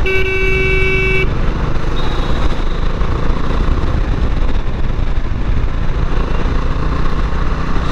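Bajaj Dominar 400's single-cylinder engine running while riding, with steady road noise; a vehicle horn sounds once for about a second at the start.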